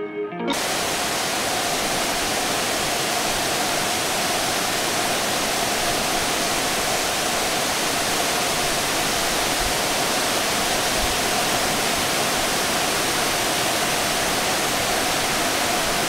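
Steady roar of Fukuroda Falls, a large tiered waterfall: an even rush of falling water that does not change. A snatch of guitar music stops about half a second in.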